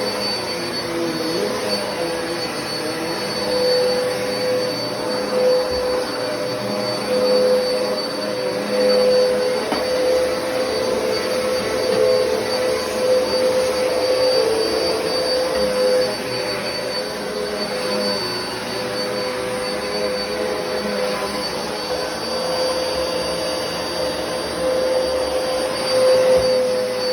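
Black and Decker vacuum cleaner running steadily, its motor holding a constant whine over a rushing hiss, with small rises and dips in loudness as it works.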